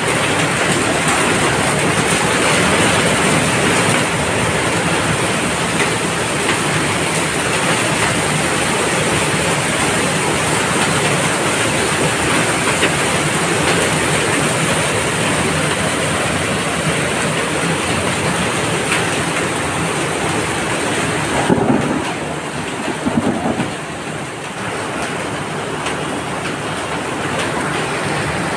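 Heavy rain pouring onto a flooded paved courtyard, a dense steady hiss of drops splashing into standing water. About three-quarters of the way through, the hiss softens for a few seconds and a couple of louder knocks stand out.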